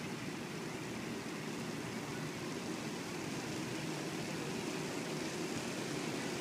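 Steady, even rushing noise of the open air on a ship's deck, with no distinct events and no change.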